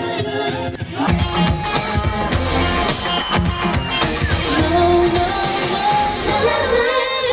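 A K-pop girl group sings live into microphones over a pop backing track. About a second in, the sound jumps to another performance with a heavier drum beat and bass.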